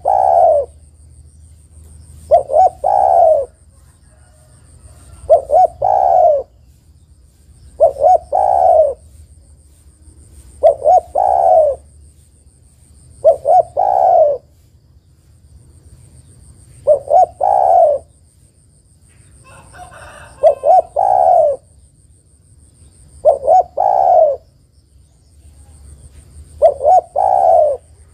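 Spotted dove cooing: a three-note phrase of two short notes and a longer one, repeated about every three seconds, some ten times. The uploader offers it as a female calling to a male.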